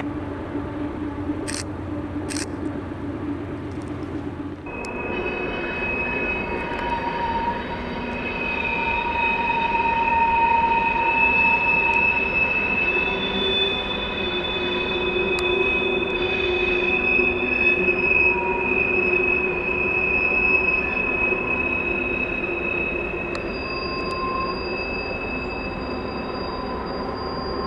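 Canadian Pacific freight train rolling past with loud wheel flange squeal: several steady high-pitched squeals that hold, fade and shift pitch over the rumble of the cars. Before a cut about five seconds in, there is a lower steady rumble with a few sharp clicks.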